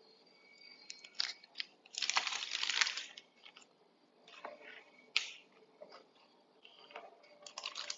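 Disposable plastic piping bag crinkling and rustling as it is squeezed and handled to pipe cupcake batter, with one longer crackly rustle about two seconds in and scattered small clicks and scrapes, some from a spatula working in the batter bowl.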